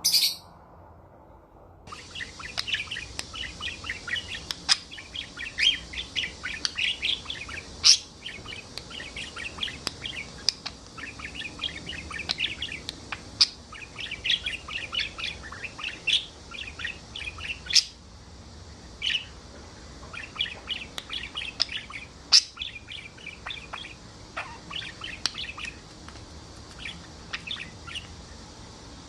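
Parrot chirping and chattering: a brief shrill call at the very start, then from about two seconds in a dense run of quick, short chirps with sharper, louder calls every few seconds.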